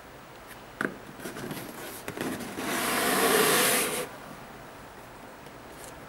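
Cardboard shoebox being opened: a single tap and some handling, then a scraping rub lasting about a second and a half as the cardboard lid slides off the box.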